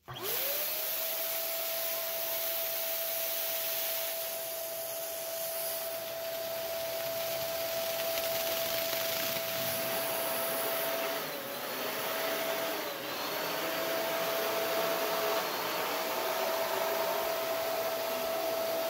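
Electric balloon inflator switched on and running, a steady motor whine over a rush of air as it blows up a foil balloon through a straw. The motor starts suddenly, and its pitch sags briefly three times past the middle.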